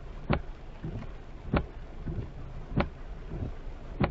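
Windshield wipers knocking at the end of each sweep, about once every 1.2 seconds, over a steady hiss of heavy rain and road noise.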